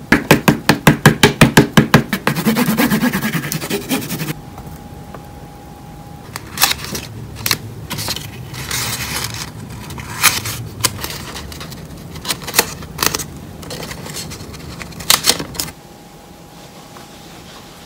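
Crayon scribbling back and forth on paper in quick strokes, about six a second, then a denser scraping, followed by scattered rustles and taps of paper being handled.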